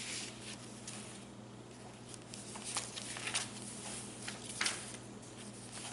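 Paper rustling and crinkling in short, scattered bits as the pages and inserts of a handmade junk journal are handled and turned, over a faint steady hum.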